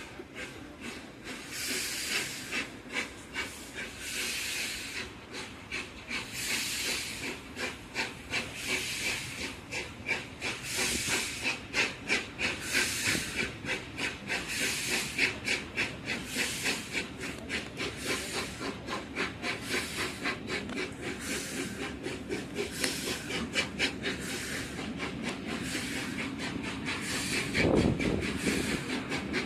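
Peppercorn A1 Pacific steam locomotive Tornado running at speed, heard from the coach behind: hissing steam and exhaust in regular surges about every two seconds over a fast patter of beats and the rumble of the train on the rails. A brief louder, deeper burst comes near the end.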